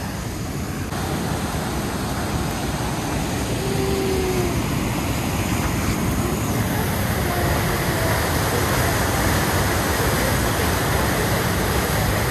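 Kivach waterfall on the Suna River: white water pouring over a rock ledge with a steady rushing sound, growing louder and fuller about six seconds in as the falls come close.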